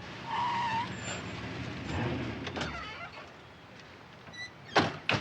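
A car pulling up with a tyre screech, then two sharp slams in quick succession near the end, like car doors shutting.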